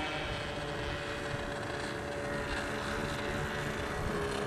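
Radio-controlled model airplane flying overhead, its motor and propeller giving a faint steady drone, with wind rumble on the microphone.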